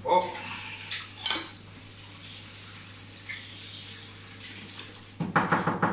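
Metal kitchenware clanking at a sink while utensils are washed: sharp clanks at the start and about a second in, then a quick rattle of knocks near the end.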